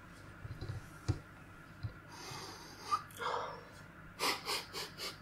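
A person sniffing a split-open chili pepper held under the nose: a longer breath in about two seconds in, then a quick run of about five short sniffs near the end. A few soft handling knocks in the first second.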